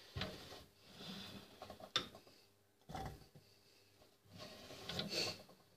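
Quiet kitchen handling sounds: diced vegetables being picked up and moved on a cutting board. A few soft knocks and rustles come with gaps between them, and a sharp click comes about two seconds in.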